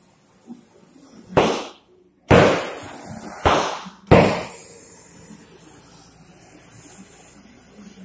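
Four loud, sudden bangs within about three seconds, each trailing off, with a short dead gap after the first; the last is the loudest.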